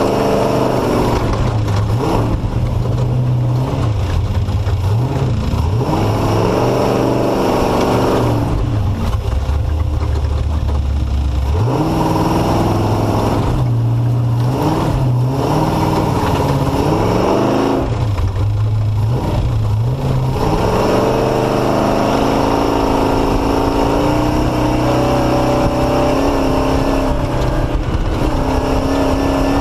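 Off-road race vehicle's engine revving up and down as the throttle is worked on a slow, tight, rough section of course. Its pitch climbs and drops again and again, then holds a steadier, higher run near the end.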